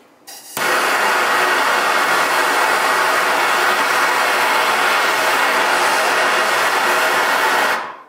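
Handheld gas soldering torch lit about half a second in, then burning with a steady loud hiss as its flame heats a half-inch copper pipe and cap for sweat-soldering; the flame is shut off suddenly near the end.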